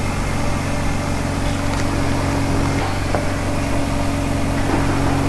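Steady mechanical hum of a running motor, with a low drone made of several steady tones and a few faint clicks.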